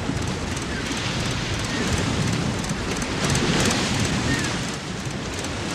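Soundtrack effect of a storm at sea: a steady rush of wind and rain, swelling slightly through the middle and easing near the end.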